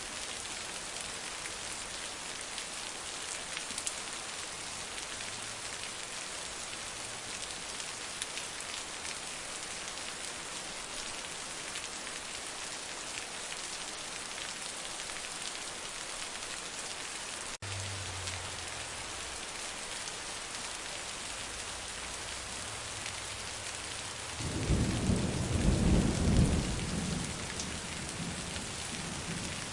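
Heavy rain falling steadily, with a low rumble of thunder about twenty-five seconds in, lasting two to three seconds and the loudest sound here.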